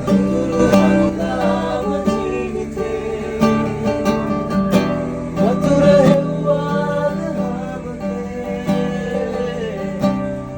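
Background music: a Sinhala love song with acoustic guitar accompaniment and a voice carrying the melody.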